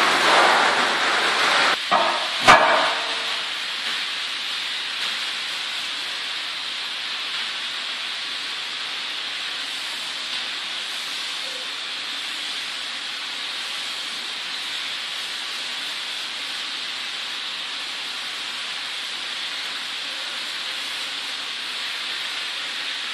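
Steady, even hiss with no other events, after two sharp knocks about two seconds in.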